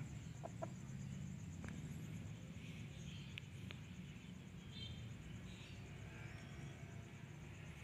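Quiet outdoor yard ambience: a low steady rumble under a faint, continuous high-pitched buzz with a fast pulse, with a few faint ticks and small chirps scattered through it.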